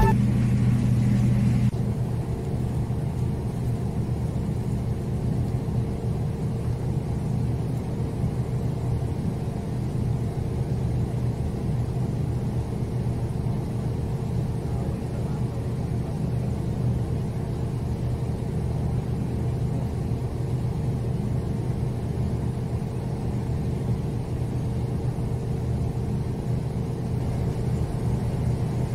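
Steady low machinery hum of a moored ship, an even drone with a steady pitch that does not change.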